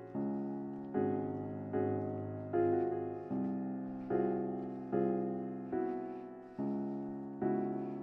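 Background piano music: slow chords struck about once a second, each one fading away before the next.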